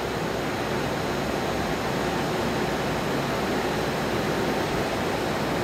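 Kern Micro CNC machining centre running with a steady rushing noise and a low hum underneath while its touch probe is calibrated in a ring gauge.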